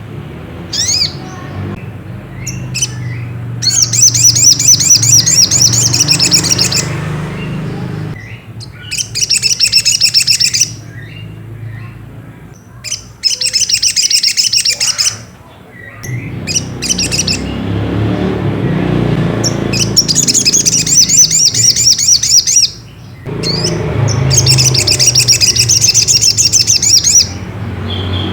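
Crimson sunbird (sogok ontong) calling: high, rapidly trilled phrases of two to three seconds, repeated about five times with short sharp chips in between, over a low rumble.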